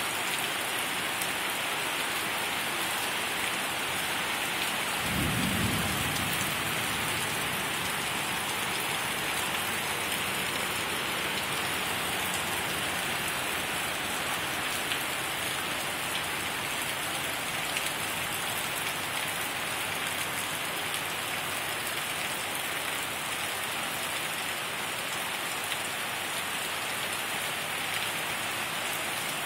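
Heavy rain falling steadily, with a low rumble of thunder about five seconds in that fades over a couple of seconds.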